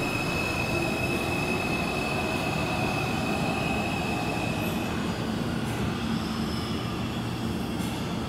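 A New York City Subway 2 train, R142 cars, pulling away from the station down the tunnel. The wheels run on the rails with a dense rumble, and a steady high-pitched squeal fades out about five seconds in.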